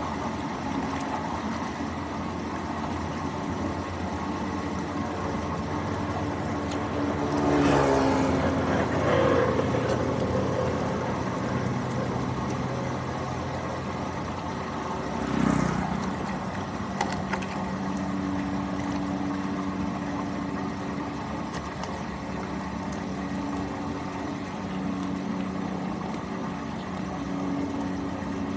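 An engine running steadily, its pitch gliding down with a louder swell about 8 seconds in and again about 15 seconds in.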